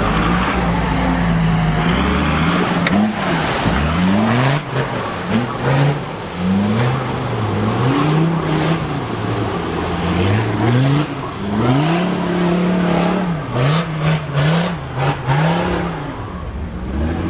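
An off-road 4x4's engine revving up and dropping back over and over, with scattered sharp knocks and clunks.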